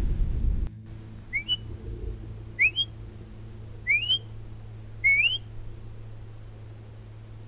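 Four short, sharp, rising whistles about a second and a quarter apart: a hunter whistling at a mule deer buck to stop it for a bow shot. A low rumble fills the first moment and cuts off abruptly.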